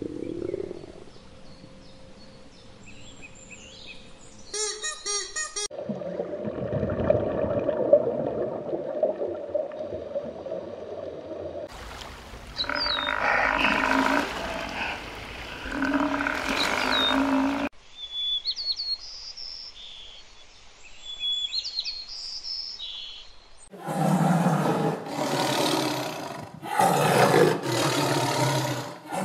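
A run of different animal sounds, one after another: faint bird chirps, then calling from water buffaloes in the middle, then several loud tiger roars near the end.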